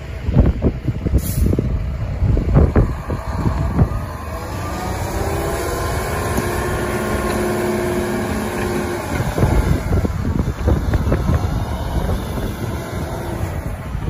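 Heavy snowplow dump truck's diesel engine running as it drives past close by, pushing snow with its front plow blade; the engine hum holds steady through the middle. Irregular low rumbling gusts come before and after it, as from wind buffeting the microphone.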